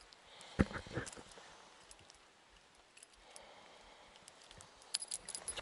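Handling noise while a small grayling is unhooked from a metal spinner: scattered clicks and knocks of fingers, fish and lure, with two sharper knocks about half a second and a second in and more small clicks near the end.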